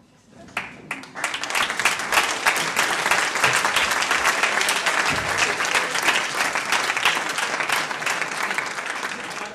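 Theatre audience applauding: the clapping starts about half a second in, quickly builds to full strength, holds steady, then eases off near the end.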